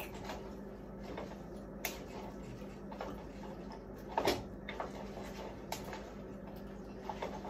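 A spoon clicking and scraping against a frying pan while stirring, in a few separate sharp knocks, the loudest a little after four seconds, over a steady low hum.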